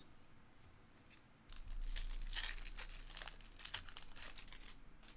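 Plastic-foil wrapper of a baseball card pack being torn open and crinkled by hand. The crackling starts about a second and a half in and lasts about three seconds.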